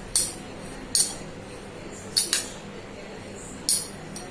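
A metal spoon clinking against a glass while mixing coffee and sugar, about six sharp, irregularly spaced clinks.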